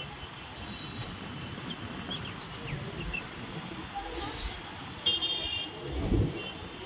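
Road traffic running steadily, with a vehicle horn honking briefly about five seconds in.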